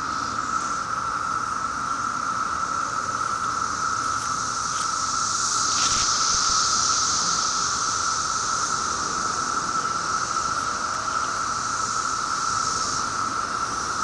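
Chorus of cicadas: a steady drone with a higher hiss above it, swelling a little about halfway through.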